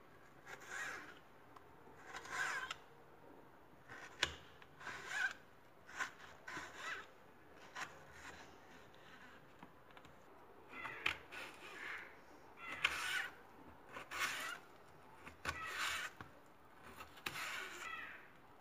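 Knife slicing raw potato into thin matchsticks on a plastic cutting board: a faint, irregular series of short, crisp cuts, roughly one to two a second.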